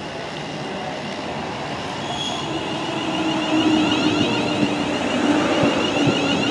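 London Northwestern Railway Class 350 Desiro electric multiple unit running into the platform, getting steadily louder as it draws alongside, with a steady whine over the rumble of the wheels on the rails.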